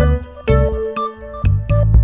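Background music: an instrumental tune of short ringing notes over a bass line, with a new note about every half second.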